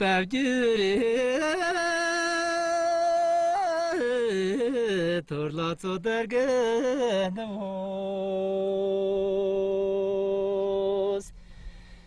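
A man singing a Tibetan Luhuo folk song, with long held notes that waver and turn between steadier stretches. It closes on a single note held for about four seconds that stops sharply shortly before the end.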